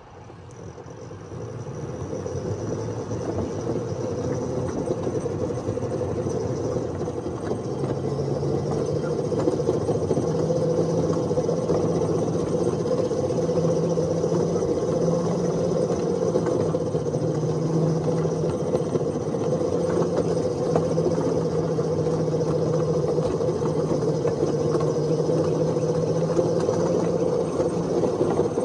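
Ride-on miniature railway train running along its track, the locomotive's drive and the wheels on the rails making a steady mechanical running sound. It grows louder over the first several seconds as the train gets going, then holds steady, with a low hum joining about eight seconds in.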